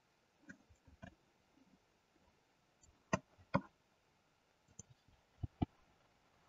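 Computer mouse button clicks: a few faint single clicks, then two sharp pairs about three seconds and five and a half seconds in.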